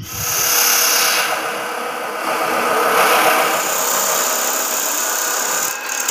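Belt-driven electric abrasive cut-off saw cutting through a metal bar: a loud, steady grinding with a lot of high hiss as the disc bites into the steel. It starts suddenly and eases for a moment near the end before biting again.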